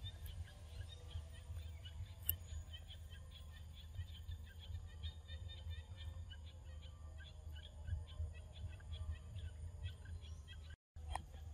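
Forest ambience: birds chirping in many short, high, scattered notes over a steady low rumble. The sound cuts out briefly near the end.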